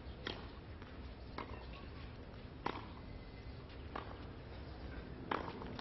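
Tennis ball hit back and forth with wooden rackets in a baseline rally: five sharp hits about 1.3 seconds apart, over a steady hiss of old film sound.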